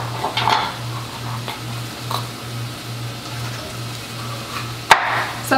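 Kitchen knife cutting through bell peppers on a cutting board, with light cutting ticks and a sharp knock of the blade on the board about five seconds in. Under it runs a steady soft hiss and a low pulsing hum.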